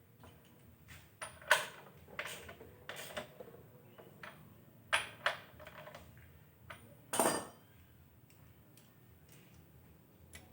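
Metal tools and engine parts clinking and knocking as they are picked up and set down, in a string of separate sharp knocks with the loudest about seven seconds in.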